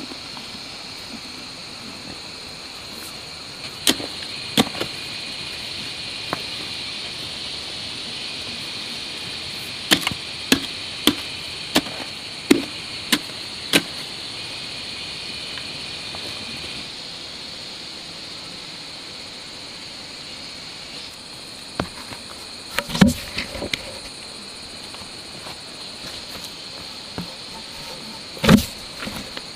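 Long-handled spade chopping into hard soil: a run of sharp strikes under a second apart in the middle stretch, then a few heavier thuds near the end. A steady high insect buzz carries on underneath.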